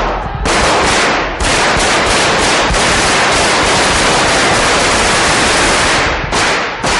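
Long bursts of automatic gunfire from Guardia Civil submachine guns, nearly unbroken after short gaps about half a second and a second and a half in, then breaking into shorter separate bursts near the end.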